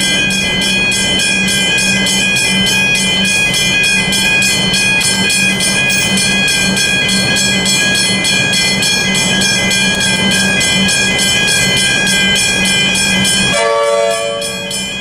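Railway level crossing's hybrid bells ringing continuously in rapid, even strokes. About a second and a half before the end, a lower horn-like tone with several overtones starts under the bells.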